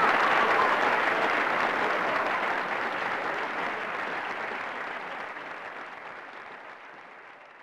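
Crowd applauding, fading out steadily.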